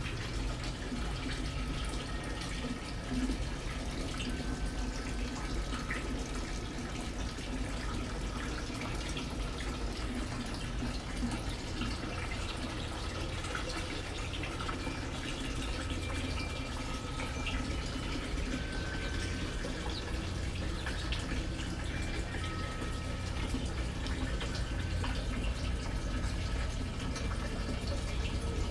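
Small garden fountain running steadily, water trickling and splashing into a stone urn basin.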